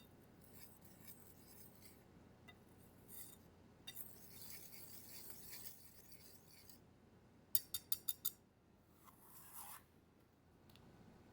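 Kitchen utensils scraping in a mixing bowl while making cookie dough, with five quick sharp clinks about seven and a half seconds in.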